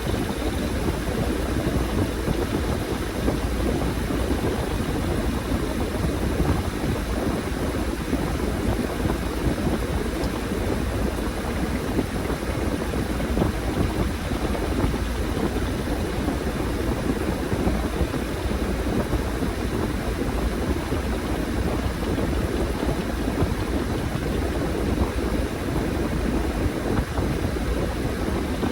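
Washing machine running a load of laundry: a steady drone of the motor and turning drum with no pauses or changes.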